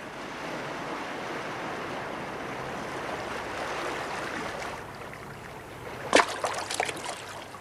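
Steady rushing of sea surf that fades after about five seconds, with a brief voice coming in about six seconds in.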